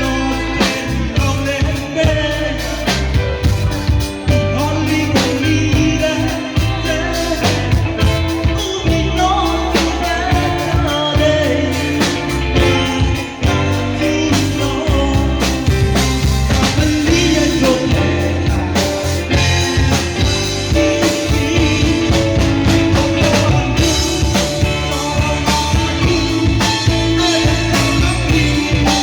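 A singer performing a song over a band with drum kit and guitar, the music continuous and loud.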